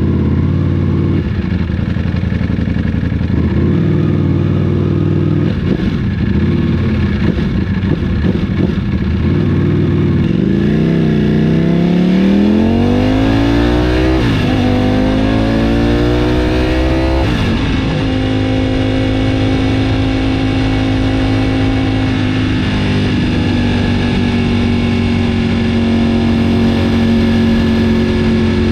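Ducati Panigale V4's Desmosedici Stradale V4 engine, rumbling at low revs and then, about ten seconds in, accelerating hard: the revs climb twice, dropping at each upshift. It then holds a steady note that slowly falls.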